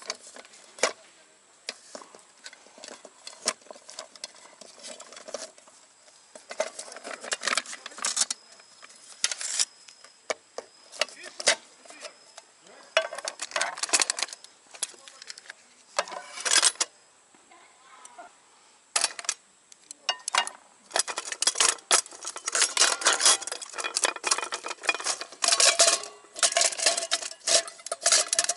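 Aluminium pots, lid and stand of a Trangia Storm Cooker clinking and clattering as the nested set is unstrapped and taken apart, set down on a wooden tabletop. The metal knocks and rattles come in short bursts with pauses between, busiest in the last few seconds.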